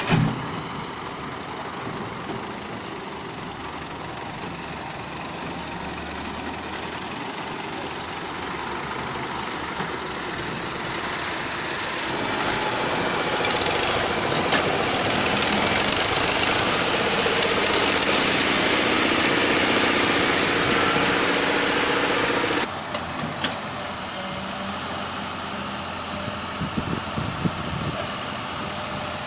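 Excavator's diesel engine running steadily. It grows louder for about ten seconds midway, then drops back suddenly, with a few light knocks near the end.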